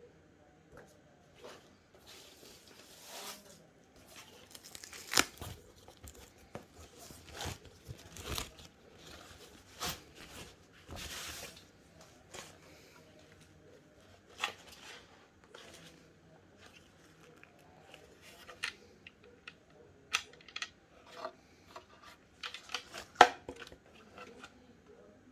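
Monitor packaging being handled and opened: plastic and cardboard rustling and tearing, with scattered sharp clicks and knocks, the loudest near the end.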